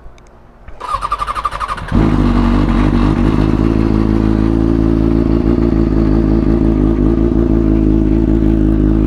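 A 2003–04 Kawasaki ZX-6R 636's inline-four engine cranked on the electric starter for about a second, catching about two seconds in and settling into a steady idle. This is its first startup breathing through the newly fitted exhaust rather than bare headers.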